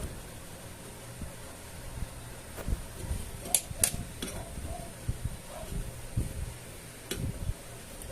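A few sharp metal clicks and light knocks as a screwdriver tightens the small screws on a new magnetron filament connector, two clicks close together about halfway and another near the end, over a steady low hum.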